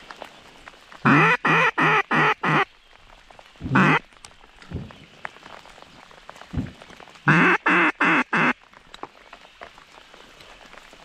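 A duck call blown in short runs of quacks: a string of five, one lone quack, then a string of four, loud and close.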